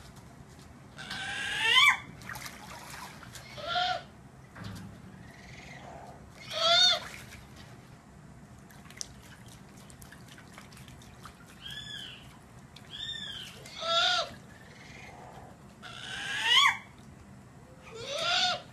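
Great grey owl giving about eight short, squeaky calls that rise in pitch, a second or several apart, while splashing in a tub of water as it bathes.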